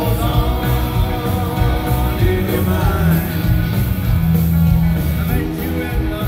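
A live rock band playing with a man singing lead into a handheld microphone, amplified through the concert PA and heard from the crowd.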